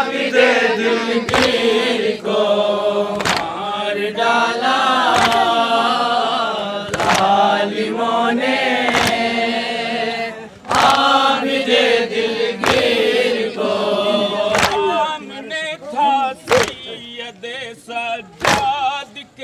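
Men chanting a noha, a Shia lament, in chorus, with sharp slaps of matam chest-beating keeping time about once a second. The voices thin out near the end while the beats go on.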